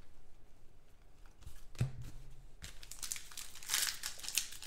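Trading cards and their foil and plastic pack wrappers being handled and shuffled by hand: papery rustling and crinkling that starts a little past halfway and continues in quick strokes. A short low hum comes near the middle.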